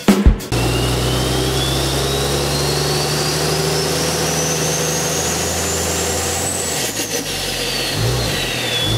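A few closing drum hits, then a turbocharged engine running steadily with a high turbo whistle that rises in pitch for about six seconds and then falls away.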